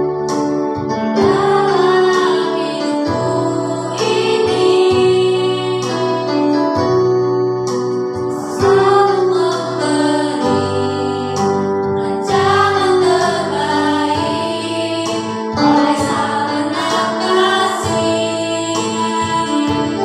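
A woman and two girls singing a worship song together into handheld microphones, over sustained keyboard accompaniment.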